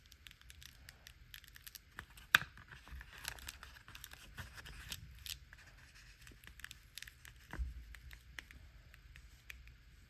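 A vinyl sticker being peeled slowly off its backing paper: a run of faint crackles and ticks as the adhesive lets go, with one sharper click about two and a half seconds in.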